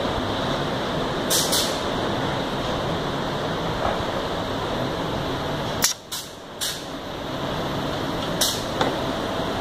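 Steady running noise of factory machinery on a glue-dispensing production line, broken by several short, sharp hisses of compressed air from pneumatic equipment. The noise drops away briefly about six seconds in.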